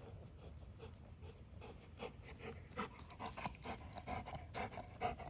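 Golden retriever puppy panting, a quick run of short breaths that grows louder over the second half.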